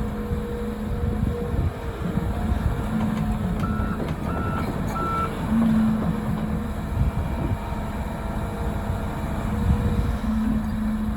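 Volvo EC300E excavator's diesel engine and hydraulics working under load with a steady rumble. A backup alarm beeps three times about four seconds in.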